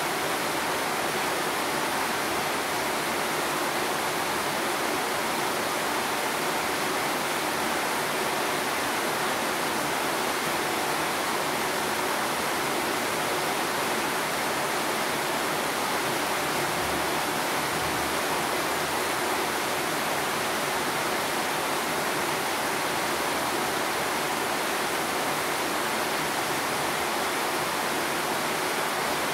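Light rain falling steadily, a constant even hiss.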